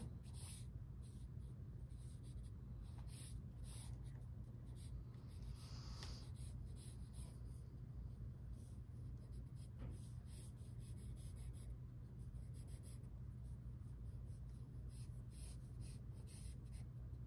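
Pencil drawing on paper: short, irregular scratching strokes of graphite on the sheet, over a steady low hum.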